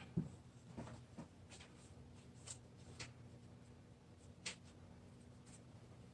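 Faint, scattered light taps and scrapes of a paintbrush and painting materials being handled on a tabletop, about six small clicks spread over a few seconds against a quiet room hum.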